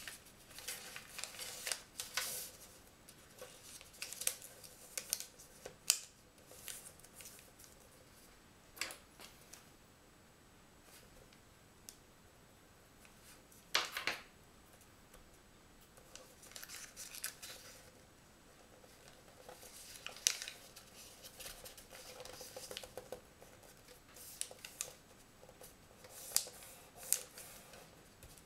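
A sheet of origami paper being folded and creased by hand: scattered crisp rustles and short swishes, with quiet pauses between the folds.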